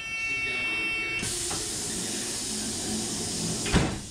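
Pneumatic train door closing. A steady warning tone of several pitches stops about a second in, a hiss of air follows, and the door shuts with a single loud thump near the end.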